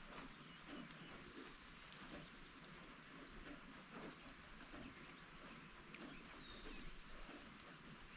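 Light rain falling steadily, with single drops landing close by. Over it an insect trills in short, evenly repeated high pulses, and a bird gives one short falling call about six seconds in.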